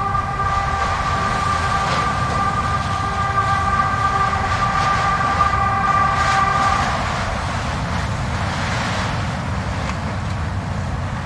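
Blizzard wind rushing steadily, with a single held howling tone in it that stops about seven seconds in.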